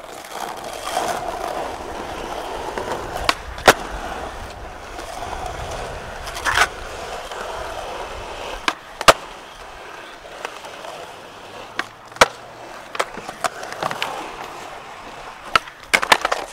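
Skateboard wheels rolling on rough asphalt, broken by a string of flatground flip tricks: each sharp pop of the tail or nose against the ground is followed about half a second later by the clack of the board landing, several times over, with a cluster of clacks near the end.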